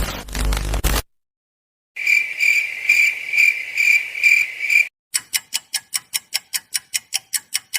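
A string of separate sound effects: a short noisy burst in the first second, then cricket-like chirping, a high steady trill pulsing about three times a second for about three seconds, then a quick run of sharp clicks at about six a second.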